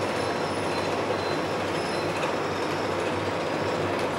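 Cabin noise inside a London Underground Central Line 1992 Stock train rolling slowly along the platform as it comes to a stop: a steady rumble of wheels and running gear, with faint high squealing tones that come and go.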